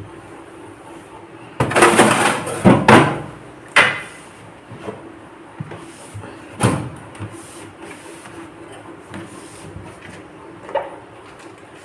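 Refrigerator shelves, drawers or door being handled. There is a loud rattling scrape lasting over a second about a second and a half in, then single knocks around four and seven seconds in, and a faint one near the end.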